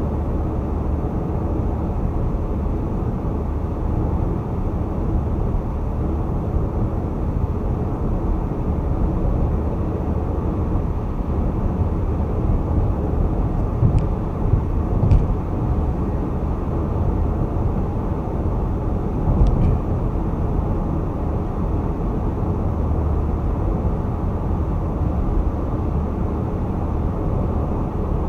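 Car cruising at highway speed: a steady low rumble of tyre and road noise, with a few short knocks partway through.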